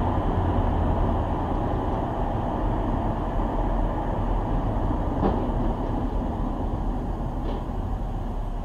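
Steady road and tyre noise with a low engine rumble, heard from inside a car driving on a highway, slowly fading toward the end.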